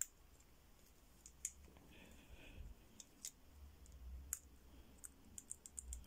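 Faint, irregular clicks of the number wheels of a four-wheel combination padlock being turned by hand, one wheel at a time, as each is tested for stiffness to decode the combination. The clicks come more often near the end.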